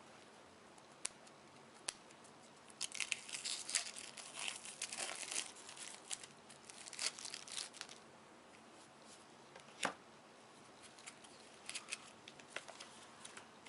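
The sealed wrapping of a trading-card starter deck being torn open: tearing and crinkling in a dense stretch of about five seconds, with a few sharp clicks before and after it and lighter crinkles near the end.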